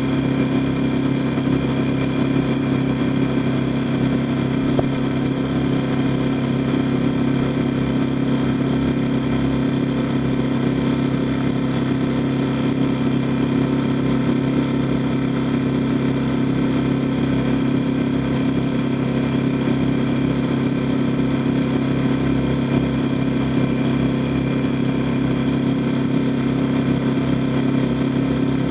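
A boat's engine running steadily at an even speed, a constant low drone with no change in pitch or level.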